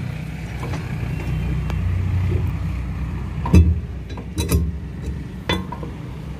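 Metal knocks from the steel cover of a Cat grader's hydraulic tank being set down over the filter element: one sharp clank about three and a half seconds in, a pair about a second later, and one more near the end. A steady low engine rumble runs underneath.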